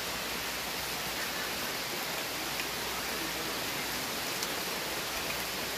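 Heavy rain falling steadily: an even, unbroken hiss of rain, with a faint tick or two of drops.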